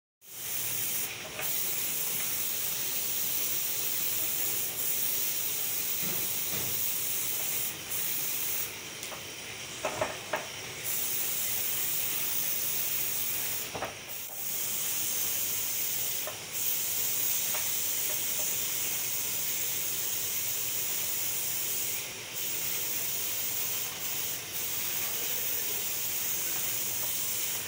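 Compressed-air paint spray gun hissing steadily as it sprays black paint onto a sewing machine body casting, with a few brief breaks in the hiss.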